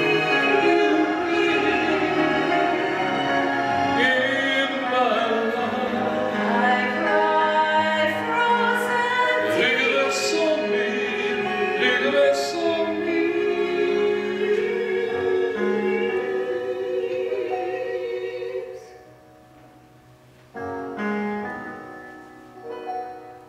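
A man and a woman singing a duet with piano accompaniment. About 19 seconds in the voices stop and the piano plays on softly alone for a few notes.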